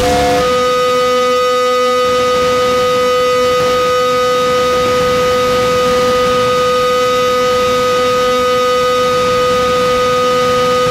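Noise-rock music: a loud, unchanging drone of held high tones with no beat. The pitch shifts briefly right at the start, then stays fixed.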